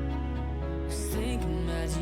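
Background music: a slow, tender song with sustained instrumental notes, in a pause between sung lines.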